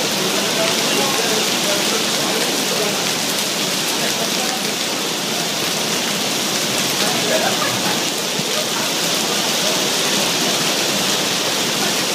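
Heavy thunderstorm downpour: rain falling steadily on a paved terrace and on the river.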